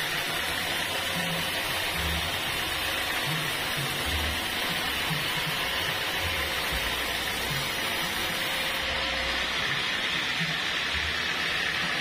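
Homemade band sawmill running, its blade cutting lengthwise through an acacia slab in a steady, even noise.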